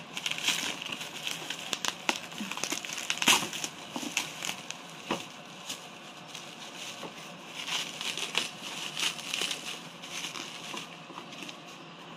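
Bubble wrap crinkling and crackling as a wrapped package is handled and lifted out of a cardboard box, with irregular small clicks. It comes in uneven flurries that are busiest early and again about two-thirds of the way through.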